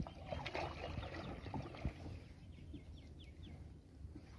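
Water splashing and dripping as a wet cast net is hauled out of the lake over the side of a wooden canoe. About halfway through comes a quick run of high bird chirps.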